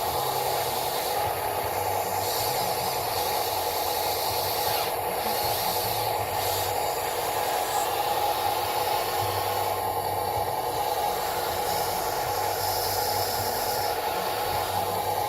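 Steady whine and hiss of an RC model's electric motor and hydraulic pump running, with a low hum that comes and goes several times.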